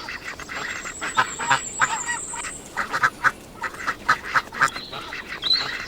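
Duck quacking in a rapid run of short, repeated quacks.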